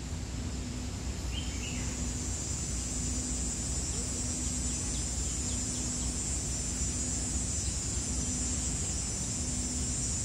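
Steady high-pitched drone of insects, growing louder about a second and a half in, over a low rumble.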